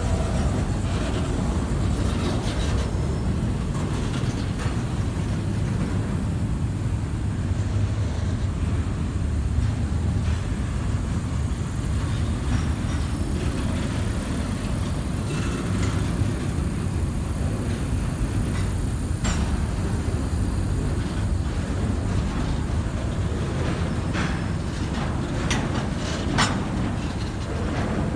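Double-stack intermodal freight train's well cars rolling past close by: a steady low rumble of steel wheels on rail, with a few sharp knocks about two-thirds of the way through and near the end.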